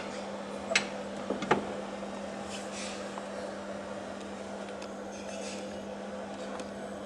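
A few light clicks and knocks in the first second and a half as parts of an old American-made fireplace are handled, then only a steady low hum.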